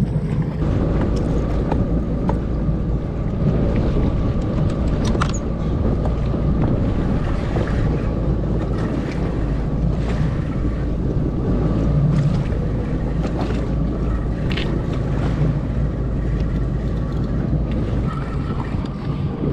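Wind buffeting the microphone over waves lapping against a jet ski, with a faint steady whine and a few light clicks.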